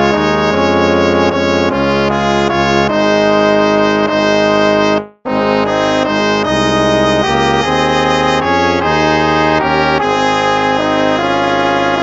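Instrumental background music of sustained chords and melody notes. It cuts out for a moment about five seconds in and starts again.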